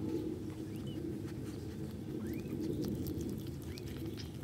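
Mother cat licking her newborn kitten clean: soft wet licking ticks over a steady low rumble, with a few faint, thin rising squeaks.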